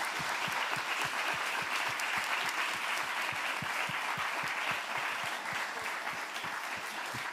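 Audience applauding, a dense steady patter of many hands clapping that eases slightly near the end.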